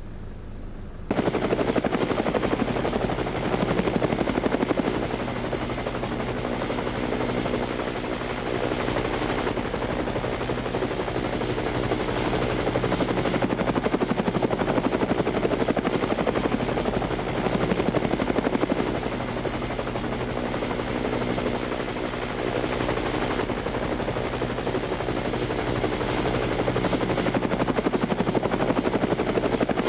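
Multirotor drone's propellers and motors buzzing steadily, close to the microphone, cutting in suddenly about a second in.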